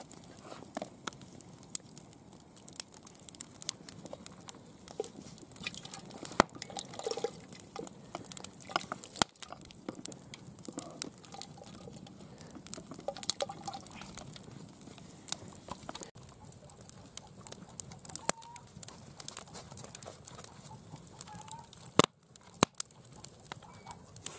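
Wood fire crackling in an open fire pit, with irregular sharp pops and snaps.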